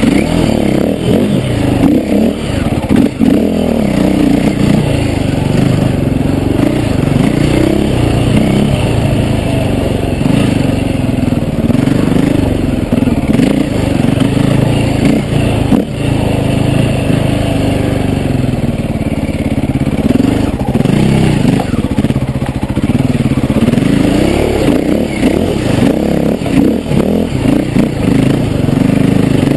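KTM enduro dirt bike engine revving up and down in pitch as the throttle is worked over rough ground, with scattered knocks and rattles from the bike.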